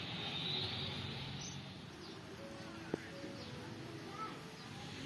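Faint outdoor garden ambience: a steady high insect hiss with occasional bird chirps, and a single sharp click about three seconds in.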